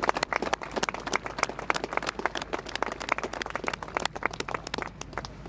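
Small crowd of spectators applauding, many hands clapping irregularly, thinning and fading toward the end.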